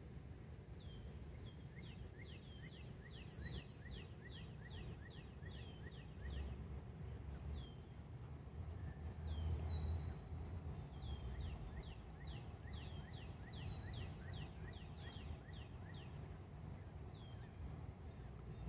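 Canada goose goslings peeping: short high calls in quick runs of about four a second, with downward-sliding whistles between the runs. Under them runs a low steady rumble that swells in the middle.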